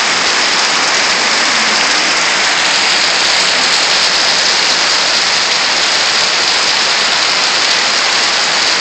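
Heavy rain pouring down: a steady, loud hiss of water.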